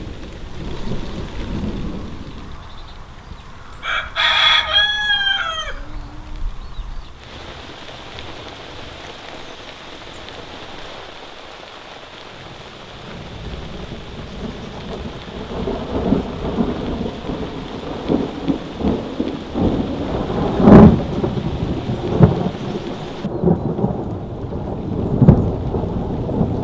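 Summer thunderstorm: steady rain with thunder rumbling on and off, and one sharp, loud peak of thunder about two-thirds of the way through. A rooster crows once about four seconds in.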